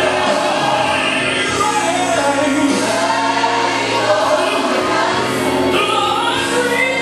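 Gospel music: a choir singing a slow worship song over instrumental accompaniment, with sustained, gliding vocal lines.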